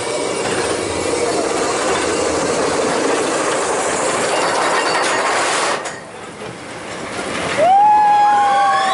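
Roller coaster train rattling and clattering along its track in a steady mechanical din. It drops off suddenly about six seconds in, and near the end riders break into long, held screams.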